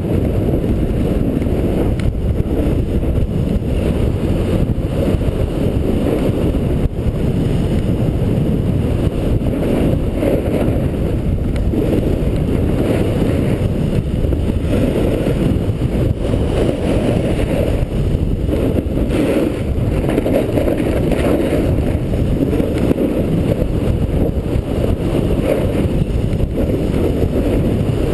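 Wind rushing over a skier's body-worn camera microphone while skiing downhill, a loud, steady low rumble that does not let up.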